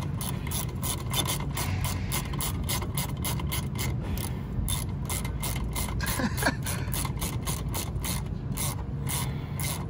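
Hand ratchet wrench clicking steadily, several clicks a second, as a 10 mm bolt is loosened.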